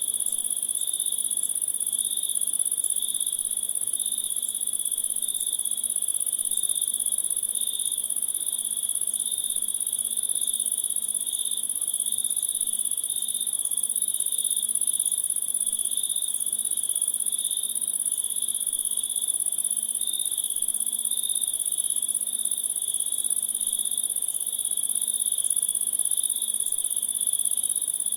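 Continuous night chorus of crickets: a steady very high trill with a lower, rapidly pulsing chirping beneath it, unchanging throughout.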